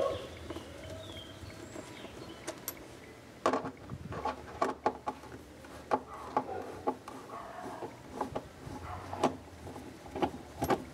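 Hand screwdriver backing screws out of a painted access cover: a run of irregular small clicks and scrapes, starting a few seconds in.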